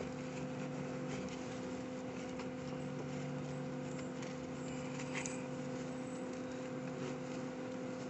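Steady mechanical hum of nearby running equipment, with faint scratching, rustling and light clicks as gloved hands push steel-wool rodent fill fabric into a gap around pipes; one slightly sharper click about five seconds in.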